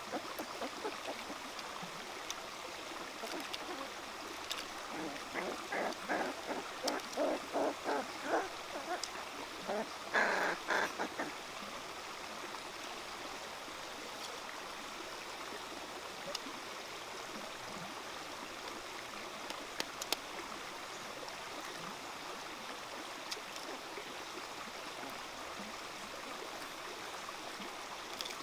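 Steady rush of a shallow rocky stream. For several seconds about a third of the way in, puppies growl and grunt in short repeated bursts over their food.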